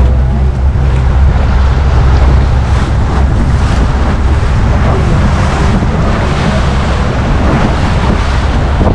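A motor launch's engine running steadily under way, with wind buffeting the microphone and water rushing and splashing against the hull in choppy waves.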